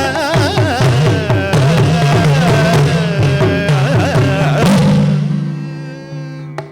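Live Carnatic-style music: a singer's ornamented melody over a hand drum whose deep strokes bend up and down in pitch. About five seconds in the rhythm stops and a single held note fades out.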